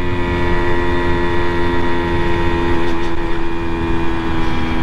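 Simson moped's single-cylinder two-stroke engine running at a steady, even pitch while riding along, with wind rumbling on the microphone.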